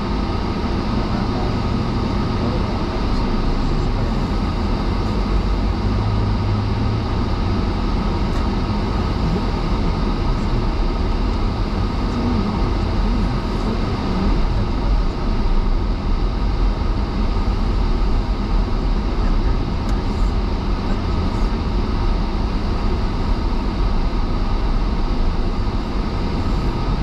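Steady road and engine noise inside a moving car's cabin, a continuous low rumble from the tyres and engine.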